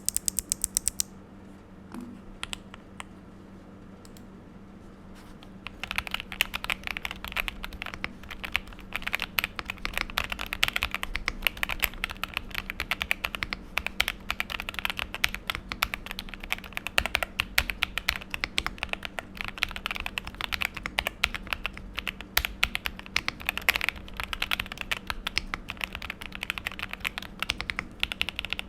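Novice68 mechanical keyboard with Akko Cream Yellow linear switches and GMK Modo-style keycaps being typed on. There are a few scattered keystrokes at first, then fast continuous typing from about six seconds in. The board is foam-filled and tape-modded, with lubed and clipped stabilizers.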